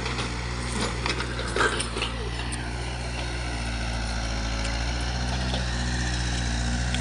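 Kobelco mini excavator's diesel engine running at a steady pitch while it digs, with a few sharp knocks in the first two seconds.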